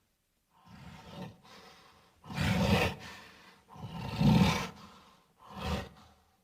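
Gorilla roaring and grunting in a run of about five short calls, the loudest about two and a half and four seconds in.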